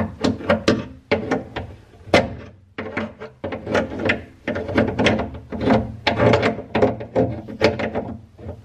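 Hand-tool work on the plastic drain piping under the sink: a quick run of short scraping, knocking strokes, about three a second.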